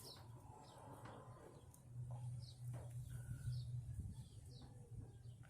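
A bird chirping in the background: short high chirps repeated every half second or so. A steady low hum runs beneath.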